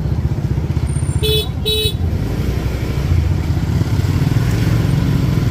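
Small motorbike engines running at low speed in close traffic, with a vehicle horn beeping twice in quick succession a little over a second in.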